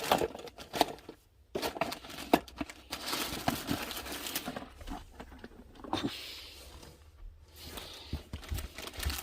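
Packaging being handled: rustling and crinkling with scattered clicks and light knocks as boxes and wrappings are moved and opened.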